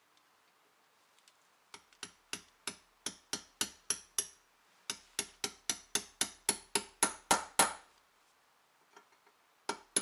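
Sharp metallic clicks from a hand tool working the handwheel hub of a cast-iron book press. They come in two even runs of about three to four a second, the second growing louder, with one more click near the end.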